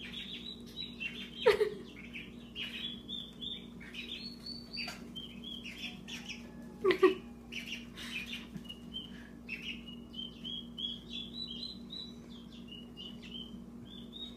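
Two-week-old turkey poults peeping, a steady run of short high peeps. Twice, about a second and a half in and again about seven seconds in, a louder sound sweeps sharply down in pitch.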